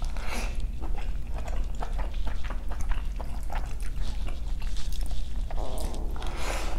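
Close-miked eating of rice with soup: wet chewing and mouth clicks, with a louder wet spoonful near the end.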